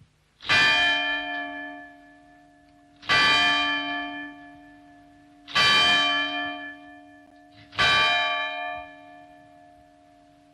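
A church bell struck four times, roughly every two and a half seconds, each stroke ringing on and slowly fading; after the last stroke the hum dies away near the end.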